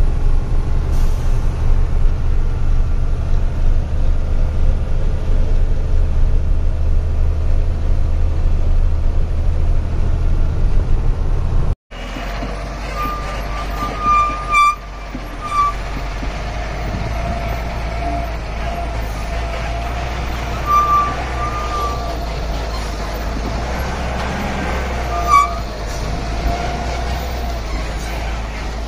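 Truck engine running with a steady low drone while driving. About twelve seconds in the sound cuts out for an instant and comes back as a slightly quieter drone, with a few short high-pitched beeps over it.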